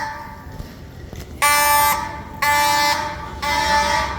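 Building fire alarm horns sounding their three-blast evacuation pattern. A pause, then three harsh buzzing blasts about a second apart, the third fainter.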